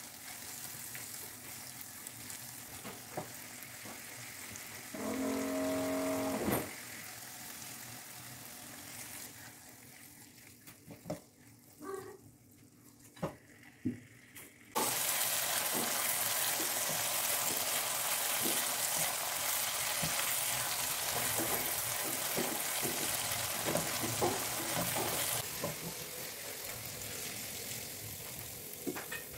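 Chili sambal frying in a granite-coated pan, with a spatula scraping and stirring through it. About five seconds in there is a brief humming tone. About fifteen seconds in, a loud steady sizzle starts suddenly, lasts about ten seconds, then falls back to a soft frying hiss.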